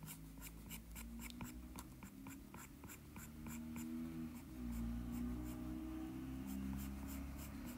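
Stylus tip tapping and scratching on the iPad's glass screen in quick short sketching strokes, several a second, with faint low steady tones underneath.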